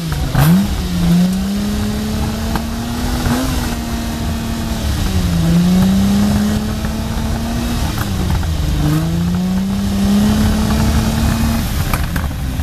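1969 Lamborghini Miura S's V12 engine being revved while parked. Its note climbs in several slow swells and falls back toward idle each time, about three or four times.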